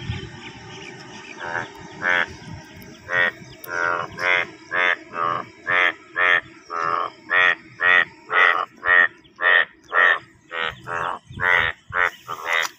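Male Indian bullfrogs calling in a monsoon breeding chorus from a rain-filled pond: a run of loud croaks, about two a second, starting a second or so in.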